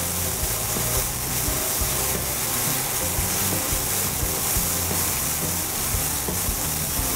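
Red wine and ruby port boiling hard in a frying pan while the alcohol burns off in a flambé: a steady sizzle and bubbling.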